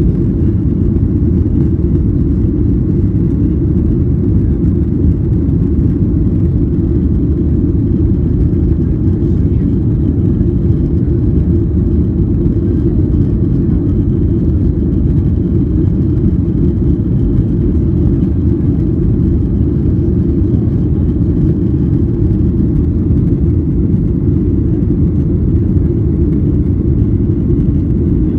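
Steady low rumble inside a Boeing 737-800's cabin during the climb after takeoff: the CFM56-7B turbofans at climb thrust and the rush of air past the fuselage.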